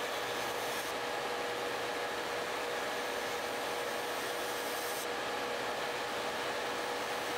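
Electric nail drill spinning a sanding band against a gel nail to grind off the top gel, its motor giving a steady whine over the even rush of a nail dust collector's fan. The high hiss of the grinding changes about a second in and again about five seconds in.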